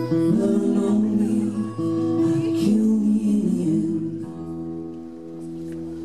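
Acoustic guitar and singing playing the closing bars of a song. About four seconds in they settle on a final held chord that rings out and fades.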